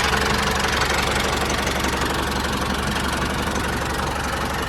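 A small engine running steadily at idle, with a rapid, even beat.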